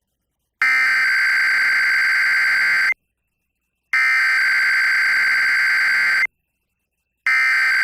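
Emergency Alert System SAME header: three identical harsh, buzzy digital data bursts, each a little over two seconds long and about a second apart, the third starting near the end. They are the coded header that opens an EAS message, here a required weekly test.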